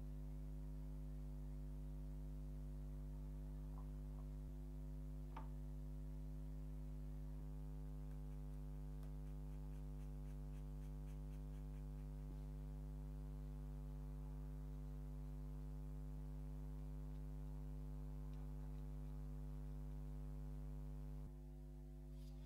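Steady low electrical mains hum with a stack of overtones, with a few faint clicks and ticks over it.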